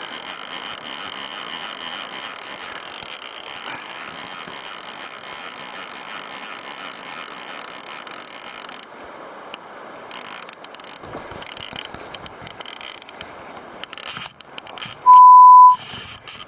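Salmon fly reel's ratchet drag buzzing steadily as a hooked salmon takes line, cutting off suddenly about nine seconds in, followed by scattered clicks and handling noise. Near the end, a short loud electronic beep at one steady pitch.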